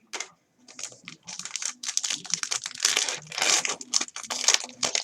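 Crinkling and rustling of a trading card pack wrapper and cards being handled, a dense run of small crackles.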